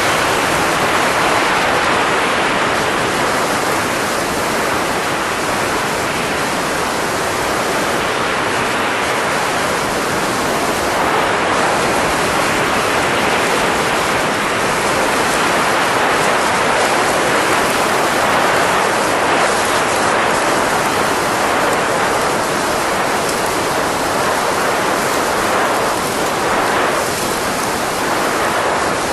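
Steady rushing hiss of blowing air, even and unbroken, with only slight swells in level.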